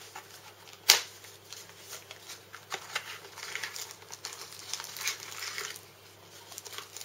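Plastic packaging crinkling and rustling as hands slide a textured plastic sleeve and pull cables and small bagged parts out of a box, with one sharp click about a second in.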